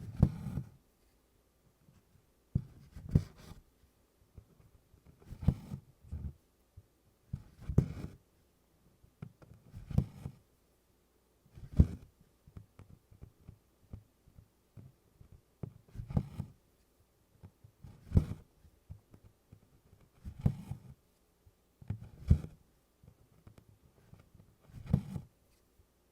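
Needle and DMC cotton floss being stitched through 24-count canvas in tent stitch: a soft thump and rub of thread drawn through the fabric, repeating about every two seconds.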